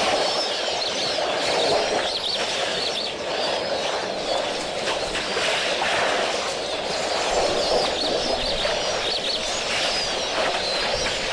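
Many small birds chirping together in a busy, continuous chorus over a steady background hiss.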